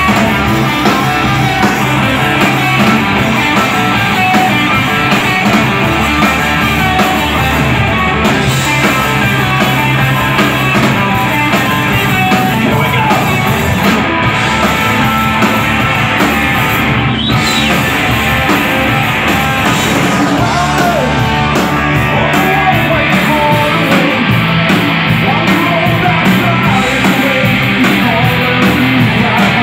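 A rock band playing live and loud: electric guitars, bass and drums together, heard from the audience.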